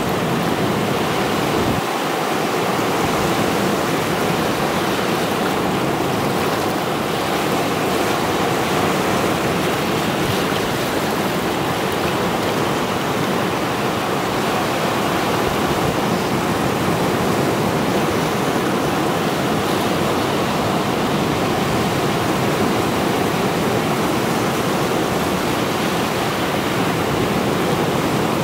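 Mediterranean sea surf, rows of waves breaking and washing over a rocky shore in a steady, continuous rush.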